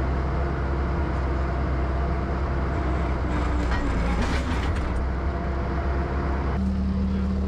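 Bobcat skid steer diesel engines running hard under load during a tow pull, with a brief noisier burst about four seconds in and an abrupt change in the engine note near the end.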